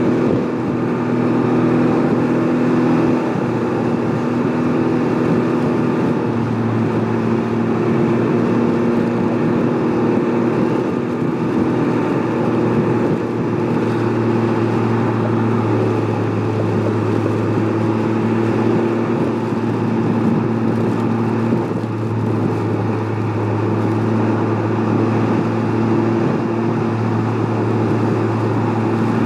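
Can-Am Ryker Rally reverse trike's engine running at a steady cruise, with wind and rain noise rushing over it.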